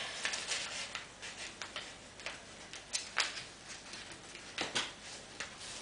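A sheet of paper being folded and creased by hand: scattered soft crinkles and ticks, with the clearest pair about three seconds in.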